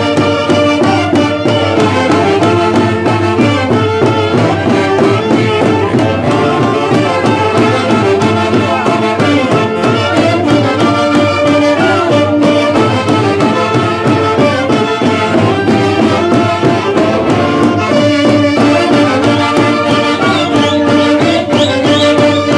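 Live Andean Santiago festival band music, loud and continuous, with saxophones and brass playing a repeating melody over a steady drum beat.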